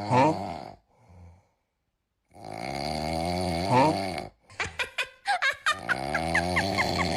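Snoring with a strong whistling, wavering pitch: a first snore that falls in pitch, a pause, a long wavering snore of about two seconds, a run of sharp clicks, then another wavering snore with quick rising squeaks several times a second.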